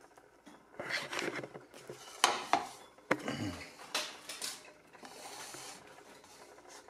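A painted whirligig propeller handled on a stone countertop: a handful of light knocks and clatters as it is picked up and turned by hand, then a quieter stretch as it spins.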